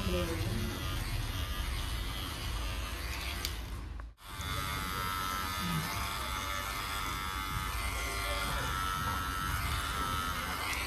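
Electric hair clippers buzzing steadily as they cut hair. The sound drops out for an instant about four seconds in, then carries on.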